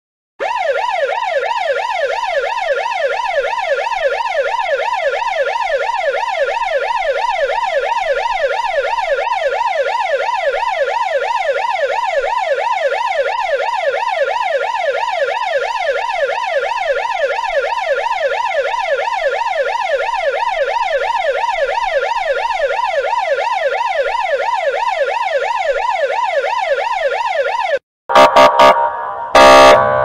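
Russian police car's electronic siren in a fast yelp, its pitch sweeping rapidly up and down several times a second. Near the end it cuts off for a moment and switches to a louder, choppy pattern of short blasts.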